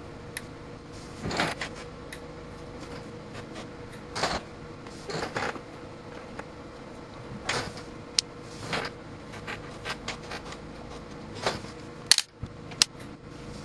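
Clicks and knocks from a UNI-T UT90A handheld multimeter's rotary range switch being turned and its buttons pressed, in a dozen or so separate short bursts, the sharpest near the end.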